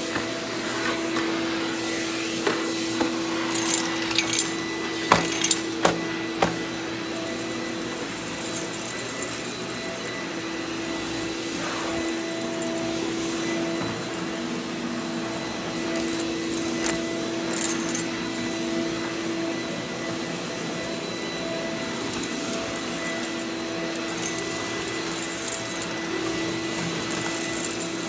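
Hoover backpack vacuum cleaner running steadily with a motor whine as its floor tool is pushed across carpet. A handful of sharp clicks between about two and six seconds in come from grit being sucked up the wand.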